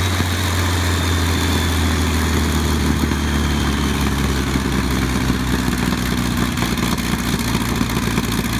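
Large WW2 fighter's piston aero engine running steadily at low revs, a deep, even drone.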